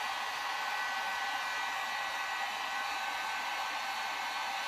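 Electric heat gun blowing steadily on high, a constant rush of air with a thin steady whine, as it heats heat-shrink tubing over a crimped cable splice.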